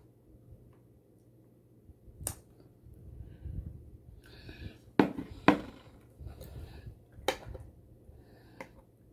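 A metal fork clicking against a plate about five times, the two loudest clicks half a second apart about halfway through, with soft mouth and chewing sounds of someone eating between them.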